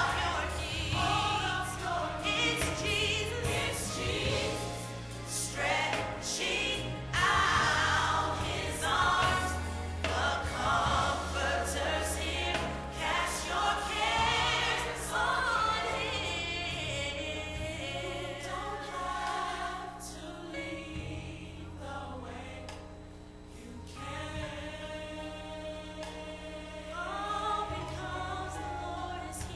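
Gospel choir music: a choir singing over sustained low accompanying notes, the voices wavering in vibrato, dropping softer for a few seconds past the middle before rising again.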